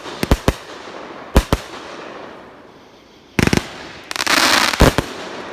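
A 25-shot, 500-gram consumer firework cake firing. There are a few sharp reports in the first second and a half, then a quick rattle of shots about three and a half seconds in. This is followed by about a second of dense continuous noise, with one loud bang in it.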